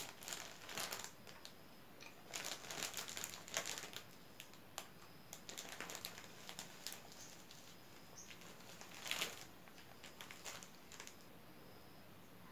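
Thin plastic bag crinkling in irregular bursts as a hand pulls strands of sai mai, Thai cotton-candy threads, out of it.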